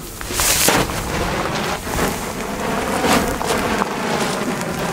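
Pink JGWB star torch (Sternfackel Typ A), a hand-held pyrotechnic torch, burning with a steady hiss of spraying sparks and a few sharp crackles along the way.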